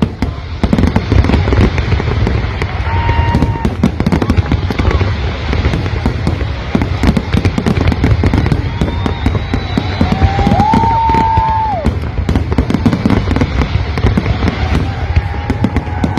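Large fireworks display in full barrage: a continuous, dense run of bangs and crackling over a low rumble, with a few brief whistling tones rising above it.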